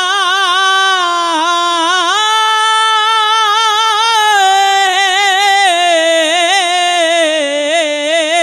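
Kavishri singer holding one long, high note, drawn out and ornamented with wavering turns and vibrato between lines of the ballad.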